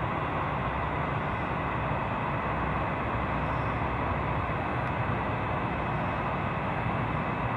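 Airbus A320-232's IAE V2500 turbofans on approach to land, a steady jet rumble with a faint high whine.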